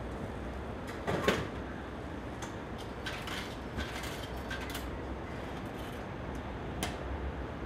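Railway station background noise: a steady low hum, a brief louder clatter about a second in, and a few faint clicks later.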